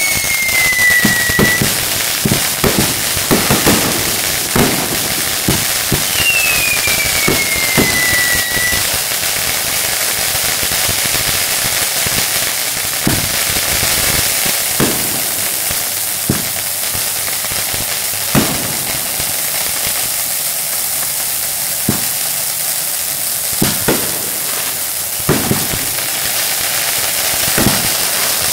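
Fireworks going off close by: a steady hissing crackle with bangs scattered throughout, and two whistles falling in pitch, one at the very start and another about six seconds in.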